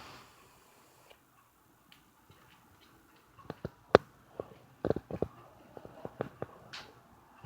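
A run of irregular sharp clicks and taps, the loudest about four seconds in, after a few near-quiet seconds.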